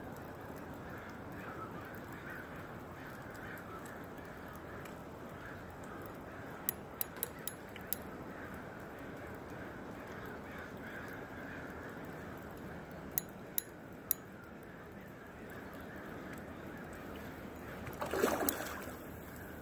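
Steady rush of flowing river water, with a few sharp clicks. About eighteen seconds in, a hooked fish thrashes and splashes at the surface; in this river it is a salmon or steelhead.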